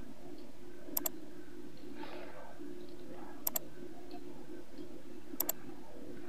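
Computer mouse clicking: three pairs of quick, sharp clicks about two seconds apart, over a low steady hum.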